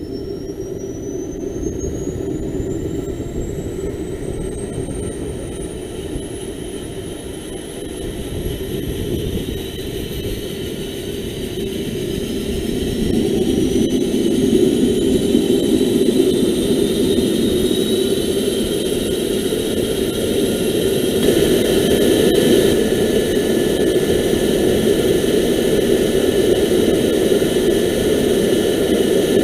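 A twin-engine helicopter's No. 1 turboshaft engine starting up: a whine climbs steadily in pitch over a lower rushing noise. It grows louder as the engine spools up, with the biggest rise about halfway through.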